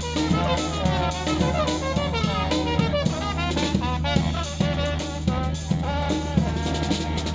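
A live band playing an upbeat jazzy tune, with drum kit and brass.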